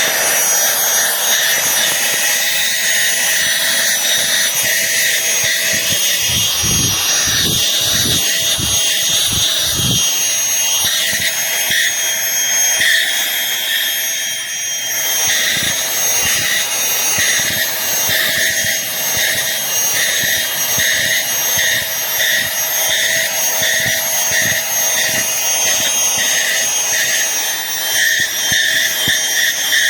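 Cordless handheld vacuum cleaner running steadily, its motor giving a constant high whine, with a few brief low rumbles about seven to ten seconds in.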